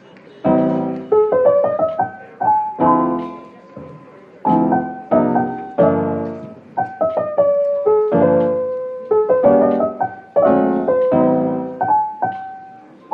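Background piano music: chords struck about once a second, each ringing out and fading, with a simple melody of single notes above them.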